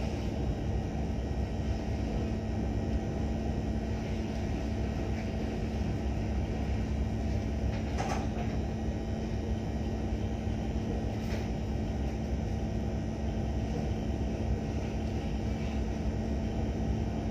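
Boat engine running steadily: a low rumble with one steady hum. A couple of faint knocks come through about eight and eleven seconds in.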